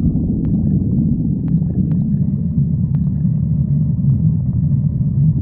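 A person's stomach growling: a continuous low, rumbling gurgle with a few faint clicks.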